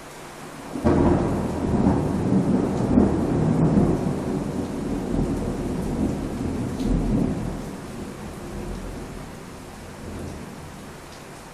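A thunderclap over steady rain: a sudden crack about a second in, then a long rolling rumble that fades away over the next eight seconds, leaving the rain hiss.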